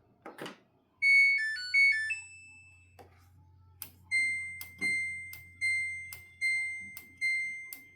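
Samsung WF45K6500AWA AddWash washing machine's control panel: a short jingle of stepped electronic tones about a second in, then the cycle selector dial being clicked round, each click answered by a short beep, about seven in a row.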